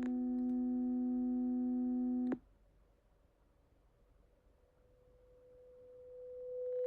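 Pure-tone hearing-test beeps from an online lowest-discomfort-level test. A steady 250 Hz tone holds and then cuts off suddenly a little over two seconds in. After a few seconds of near silence, a 500 Hz tone fades in and grows steadily louder, as the test raises each frequency toward the level of discomfort.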